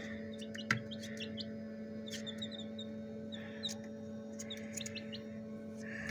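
Newly hatched chicks peeping: short, high chirps in quick runs throughout. Under them runs a steady hum from the incubator, with a sharp knock about a second in.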